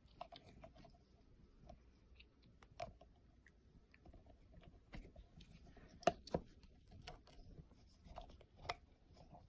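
Faint, scattered taps and clicks of hands handling slime-making containers and supplies, a few a little sharper than the rest.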